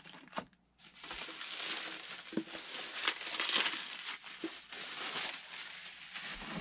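Clear plastic bag crinkling and rustling as a tail surface of the model plane is pulled out of it, with a couple of light knocks in the first half second.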